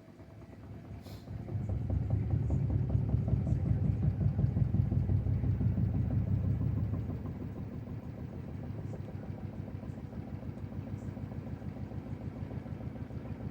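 LG front-loading washing machine in its spin cycle, the drum and motor winding up in the first couple of seconds. It runs loud and low for about five seconds, then drops about seven seconds in to a quieter, steady hum with a fast, even pulsing from the turning drum.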